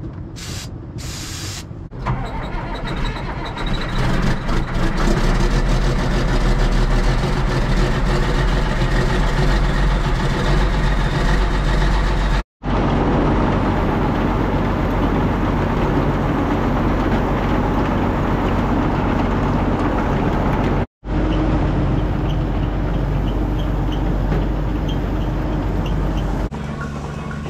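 Diesel tractor engine and feed mixer running as feed is discharged into a bunk: a loud, steady machinery drone with a deep rumble, rising about two seconds in and cut off abruptly twice.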